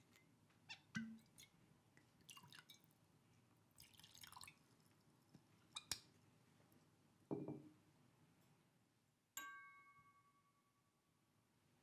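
Quiet handling of a liquor bottle and glasses as a drink is poured: a few small clicks and knocks, then a glass set down with a sharp clink that rings briefly near the end.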